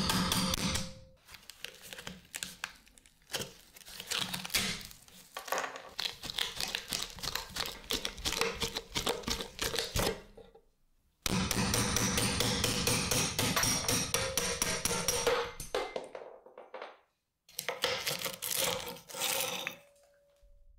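Hammer blows on a steel pin punch knocking the old, rotten wooden handle out of a rusty steel cleaver head, with the wood cracking and crumbling. The blows come in several stretches broken by two brief silences, and a faint metallic ring sounds at the start and near the end.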